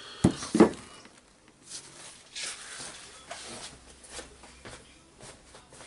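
Two sharp knocks within the first second, then scattered light knocks and rustles as metal tools and parts are handled and moved on a wooden workbench.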